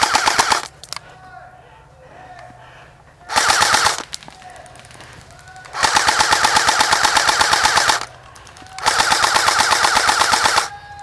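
Airsoft electric rifle, an SRC M16A3, firing on full auto in four bursts: two short ones, then two of about two seconds each. Each burst is a fast, even rattle of shots.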